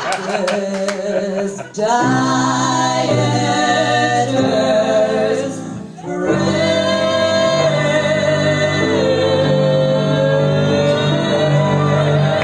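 Female vocal trio singing in close harmony, ending in a long held chord that starts about six seconds in.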